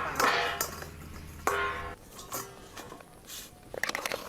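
Metal cookware clanging: two ringing strikes about a second and a half apart, as of a utensil hitting a cooking pot, then lighter clicks and clatter near the end. A low steady hum stops about halfway through.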